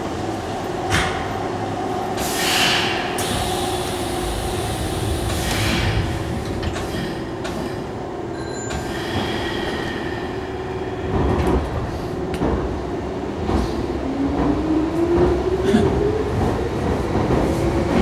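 Hanshin 5000 series train heard from inside the car: a steady electrical hum, the sliding doors closing with short hisses of air and a knock, then the traction motors whining steadily higher in pitch as the train pulls away and accelerates.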